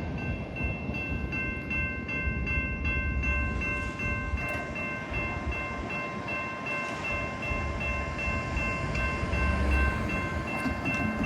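Freight cars rolling past with a low rumble and wheel noise, while a grade-crossing bell keeps ringing in quick, even strokes.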